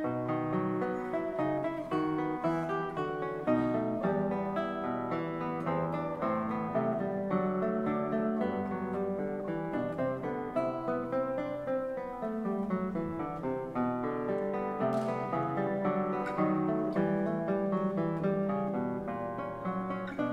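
Classical nylon-string guitar played solo, a continuous stream of quick plucked notes.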